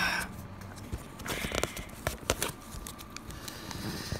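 Cardboard and plastic packaging being picked at and pulled open by hand: scattered crinkles, scrapes and small tearing sounds.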